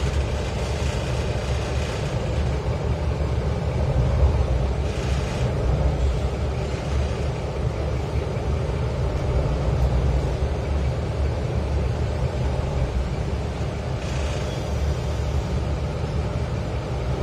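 Cabin noise inside a moving city shuttle bus: a steady low engine and road rumble. Short hisses rise over it in the first two seconds, again about five seconds in, and again about fourteen seconds in.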